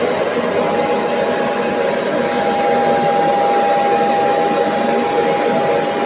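Kärcher Puzzi 10/1 spray-extraction cleaner's suction motor running steadily: a rushing air noise with a steady whine over it.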